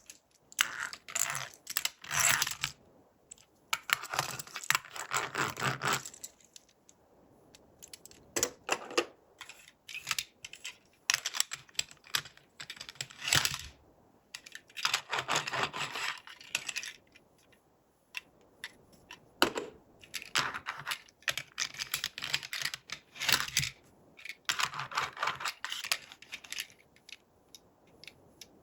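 Toy packaging being handled and opened: bursts of rustling and crinkling with sharp clicks, stopping and starting every few seconds.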